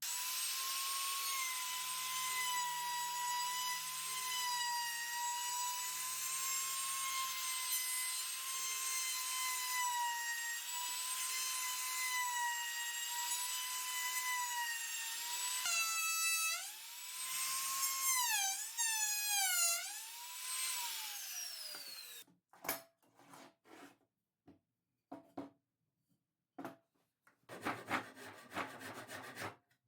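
Electric power tool running on pine: a steady high motor whine that dips and recovers in pitch several times as it cuts, then winds down about 21 seconds in. Scattered knocks follow, and a short burst of scraping comes near the end.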